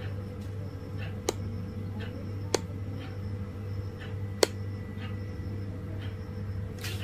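Quiet room tone: a steady low hum with three brief sharp clicks in the first part.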